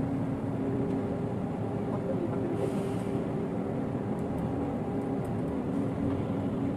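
A steady, even mechanical drone of an engine running, with a constant low hum and no change in speed.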